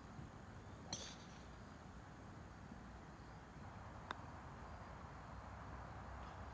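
A putter strikes a golf ball with a short, bright click about a second in. A second sharp click follows about three seconds later, over faint outdoor background.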